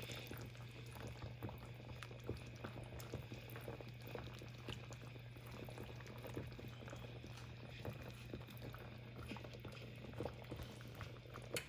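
Chicken curry with vegetables simmering in a pan, a faint bubbling with many small crackles, over a steady low hum.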